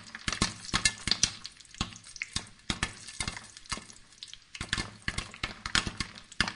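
Corn cobs roasting over a charcoal brazier while a woven hand fan is waved over the coals: a rapid, irregular run of sharp crackles and flaps, easing off briefly about two and four seconds in.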